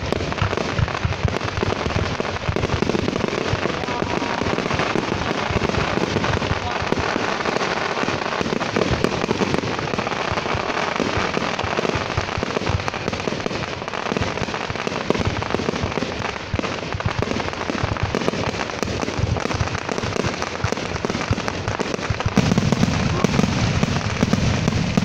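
Fireworks going off in a continuous, dense barrage of bangs and crackles with no real pause, the low booms getting heavier near the end.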